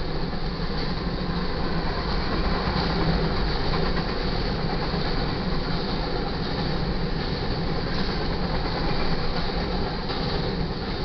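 Freight train's covered hopper cars rolling past, a steady rumble of steel wheels on rail.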